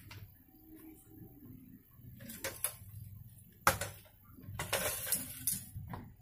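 Metal parts knocking and clinking during work on a satellite dish mount, with one sharp clank partway through and a second or so of scraping rasp after it.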